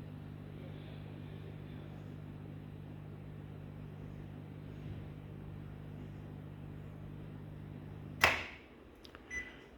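The microwave system's high-voltage transformer and magnetron supply hum steadily while running for about eight seconds, then shut off with a loud click. A short beep follows about a second later.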